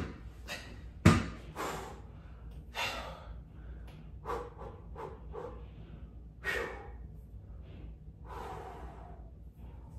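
A man breathing hard during sit-up crunches on an ab bench: short, forceful exhalations and gasps every second or so, with the two loudest near the start.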